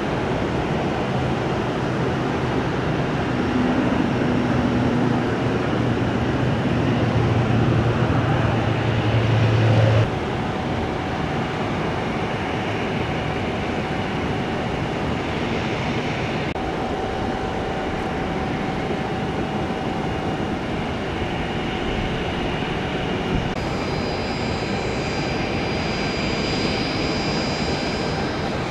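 Jet aircraft engines running at an airport: steady engine noise with thin whining tones. A low hum cuts off sharply about ten seconds in, and a higher whine comes in near the end.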